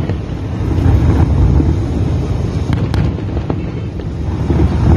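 Distant fireworks display: a continuous low rumble of booms that swells and fades, with a couple of sharp cracks near the middle.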